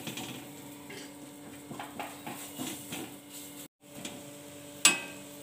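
Metal spatula striking a dosa tawa once near the end, a sharp clink, as the chickpea batter cake is flipped, over a steady low hum.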